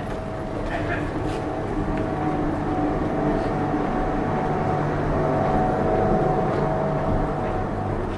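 A vehicle engine running steadily close by, a low hum that grows a little louder around the middle.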